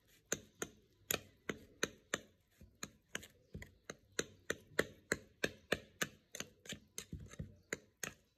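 A metal spoon mixing and mashing soft cake in a bowl, clicking against the bowl about three to four times a second.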